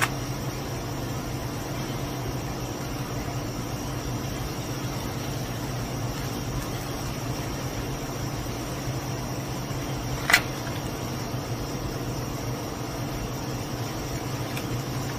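Steady low machine hum with a thin high whine above it, and one sharp click about ten seconds in.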